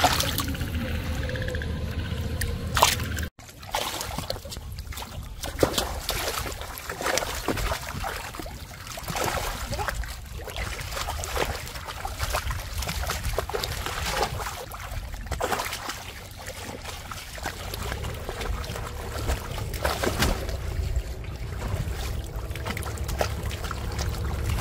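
Shallow water splashing and sloshing: a large carp thrashing in a flooded field for the first few seconds, then irregular splashes of feet wading through shin-deep water. A low steady rumble lies under it throughout.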